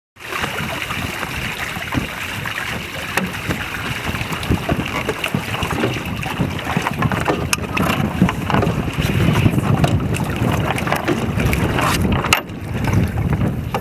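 Steady rush of water along a small sailing proa's hull as it sails fast, with wind buffeting the microphone. The noise starts abruptly and dips briefly near the end.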